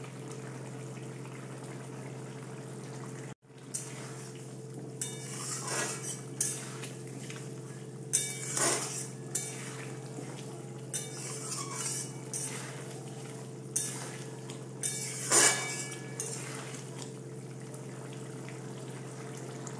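Metal spatula stirring simmering potato curry in a metal kadai, with intermittent scrapes and clinks against the pan over a steady low hum.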